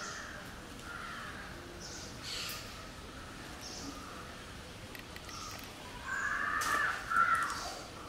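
An oriental magpie robin splashing as it bathes in a shallow terracotta bird bath. Other birds call repeatedly in the background, loudest from about six seconds in.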